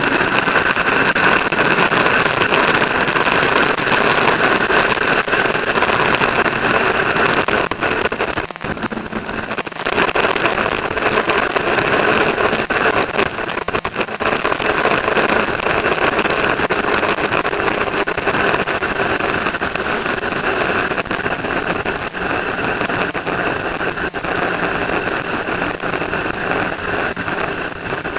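A vehicle engine running steadily, with a brief dip about eight to ten seconds in.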